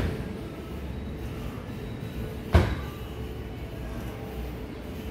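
A strike landing on a hanging heavy punching bag: one sharp thud about two and a half seconds in, over a steady low background rumble.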